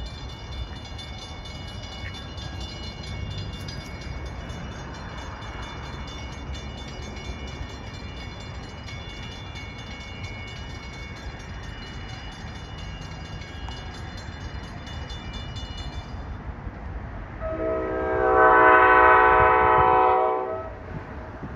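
A train approaching with a low steady rumble while a warning bell rings, the bell cutting off about three quarters of the way through. Near the end the Bombardier ALP-45A locomotive sounds one loud, chord-like horn blast lasting about three seconds.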